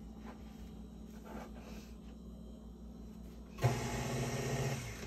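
KitchenAid stand mixer's motor switched on briefly, running steadily for about a second near the end before stopping.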